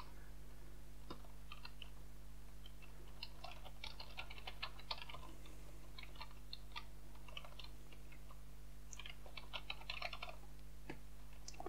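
Typing on a computer keyboard: quiet keystroke clicks in irregular runs, busiest in the middle and again near the end, over a steady low hum.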